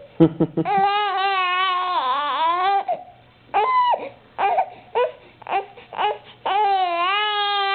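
Baby vocalizing: two long, drawn-out high-pitched cries of about two seconds each, one near the start and one near the end, with shorter sounds between.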